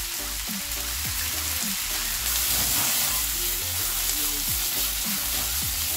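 Sausages and chopped vegetables sizzling in an oiled frying pan as they are stir-fried and tossed: a steady frying hiss that grows a little louder about two seconds in. Soft background music plays underneath.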